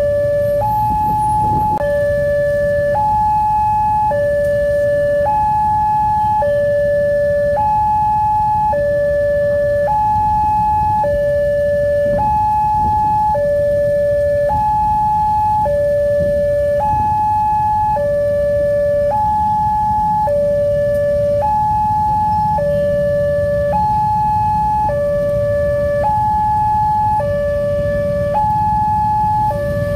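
Railway level-crossing warning alarm from a WANTECH crossing signal, an electronic two-tone sound that alternates between a lower and a higher tone about once a second, without a break. It means a train is approaching and the barrier is down. Under it is the low rumble of waiting motorcycles and traffic.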